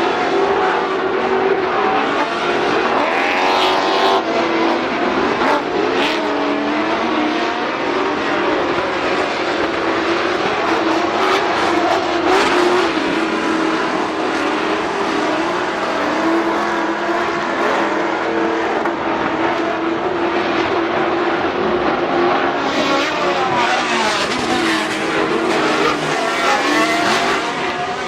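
Several off-road race vehicles' engines running hard together on a dirt course, their pitches overlapping and rising and falling as they rev, shift and lift. A few short sharp cracks cut through.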